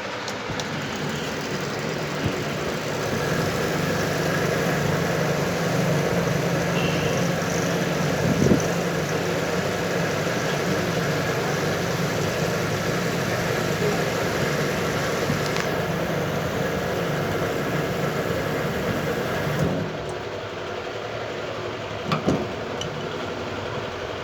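A steady mechanical running hum with a low drone, louder for most of the stretch and dropping off suddenly about twenty seconds in, with a few sharp clicks.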